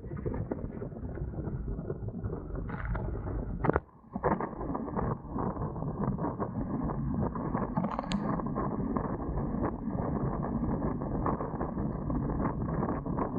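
Dart 18 catamaran under sail: a steady rush of wind on the microphone and water along the hull, with frequent knocks and clicks from the boat and rigging. A sharp knock comes about four seconds in, and a short high squeak about eight seconds in.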